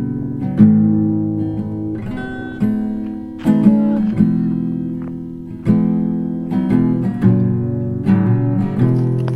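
Background music: acoustic guitar strumming chords, each strum starting sharply and fading, with no singing.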